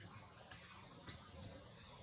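Near silence: faint outdoor background with a few soft ticks.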